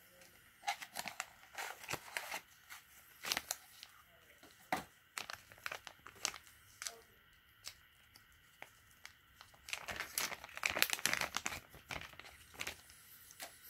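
Packaging being handled: a small cardboard box opened with scattered scrapes and taps, then a clear plastic bag crinkling as it is handled and pulled open to free a folding knife, densest about ten to twelve seconds in.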